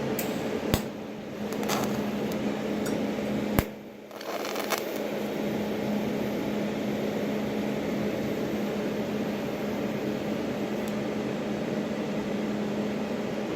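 Electric welding arc tacking a steel landing-gear bushing in place: a steady buzzing hum, cut off briefly twice with a sharp click before it starts again.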